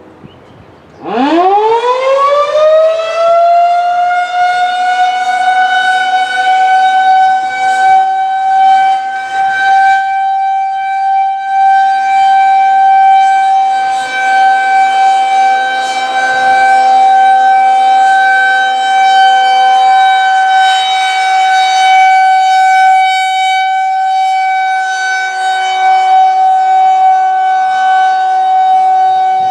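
Federal Signal 2001-130 rotating electromechanical civil defense siren starting up: about a second in it winds up in a fast rising sweep, then holds one steady tone, the Alert signal. The loudness swells and dips slowly as the rotating head turns.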